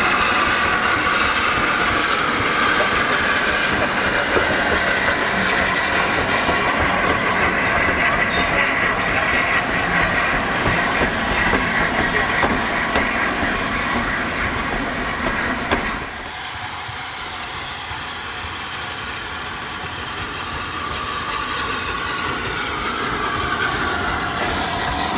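Steam-hauled passenger train passing: the coaches' wheels clack over the rail joints under a steady hiss of steam. About 16 seconds in the sound drops abruptly to a quieter rumble, which grows again toward the end as the locomotive, LNER A2 Pacific "Blue Peter", draws close.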